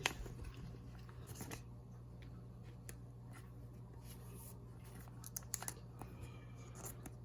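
Faint handling of Pokémon trading cards: a few light clicks and short rustles as cards are moved, over a steady low hum.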